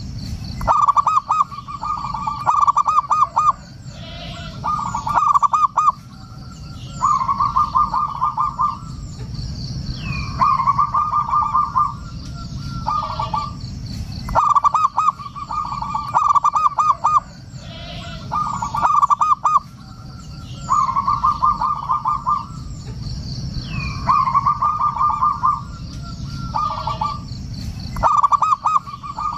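Zebra dove (perkutut) cooing over and over: rapid, staccato rolling phrases of about one to two seconds, repeated every two to three seconds.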